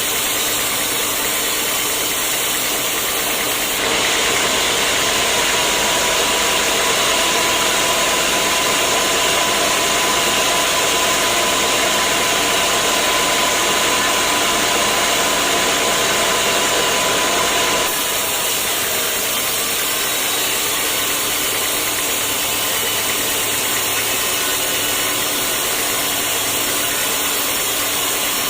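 Sawmill saw machinery running steadily. From about four seconds in to about eighteen seconds it gets louder and adds a steady whine, then drops back abruptly to the lower running sound.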